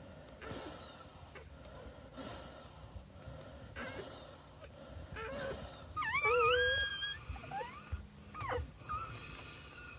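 A Brittany in labour breathing heavily in a steady rhythm, a little under one breath a second. About six seconds in comes a loud, high, wavering dog whine, with shorter falling cries a moment later.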